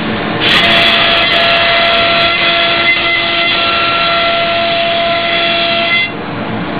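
Wood CNC router spindle running and cutting, a steady whine of several tones over the cutting noise. It gets louder about half a second in and eases off again about six seconds in.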